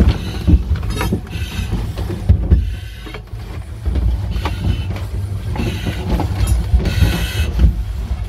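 Firefighter in breathing apparatus crawling through a narrow plywood passage: gear knocking and scraping against the boards and metal bars, with short hissing breaths through the mask's air supply every second or so.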